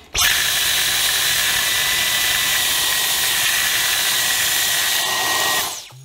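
Dyson V10 Absolute cordless stick vacuum on maximum suction with the crevice tool, switched on abruptly and running steadily with a high whine while it sucks uncooked rice out of a bowl. It is switched off near the end and its motor winds down.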